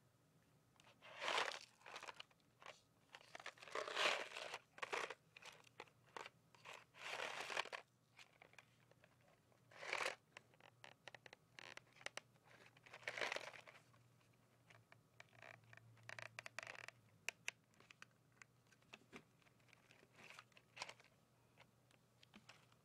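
Fingers handling a small cardboard candy box up close, rubbing, scratching and tapping the cardboard. The sound comes in irregular scraping, crinkly bursts with short clicks in between.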